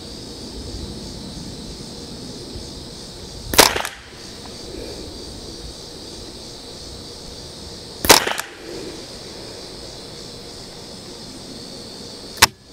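Three single shots from a Ruger 10/22 Target semi-automatic .22 LR rifle, one sharp crack every four and a half seconds or so.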